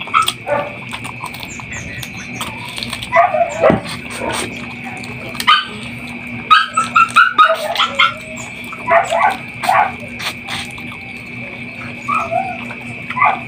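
A dog whining and yipping in short bursts several times, over close mouth sounds of chicken meat being sucked and chewed off the bone. A steady high-pitched tone and a low hum run underneath.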